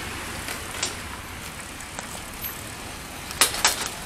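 Steady rolling noise of a bicycle being ridden along a paved footpath, with a low rumble and a few sharp rattles about three and a half seconds in.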